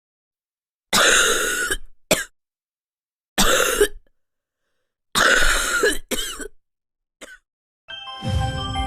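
A person coughing: three long coughs about two seconds apart, each followed by a shorter cough. Music starts near the end.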